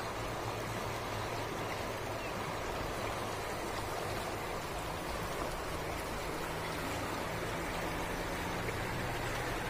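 Fast-flowing river water rushing over rapids, a steady even roar, with a faint low hum beneath it.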